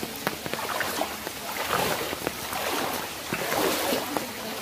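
Floodwater sloshing and splashing as a person wades through it, swelling twice, with small drops and splashes ticking over the steady hiss of rain on the water.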